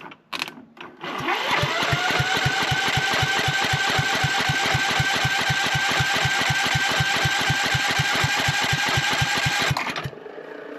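Electric starter cranking the ride-on lawn mower's engine for about nine seconds without it catching: an even chugging about five times a second under the starter's whine, which rises briefly and then holds steady, and then the cranking stops abruptly. A few short clicks come just before the cranking begins.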